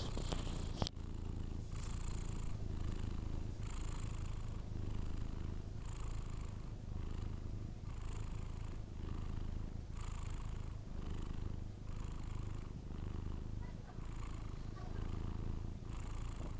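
A sleeping cat breathing with a low rumble, a soft breath roughly every two seconds.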